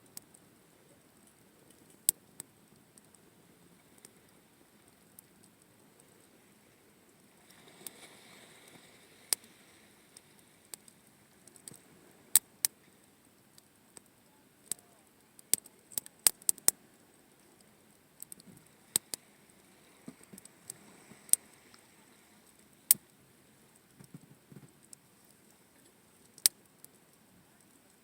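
Wood campfire crackling: sharp, irregular pops, thickest a little before the middle, over a faint steady background.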